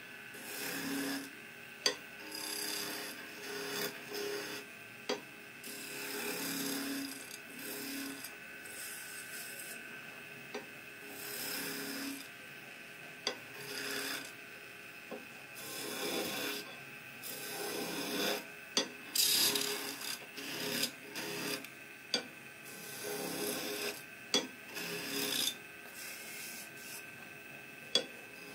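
Flat chisel cutting a wooden spindle spinning on a lathe: repeated scraping, shaving passes of a second or two each, with sharp clicks now and then.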